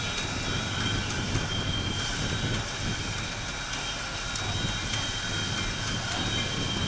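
Southern Railway No. 630 steam locomotive moving slowly along the track: a steady low rumble with a few thin, steady high-pitched tones ringing over it.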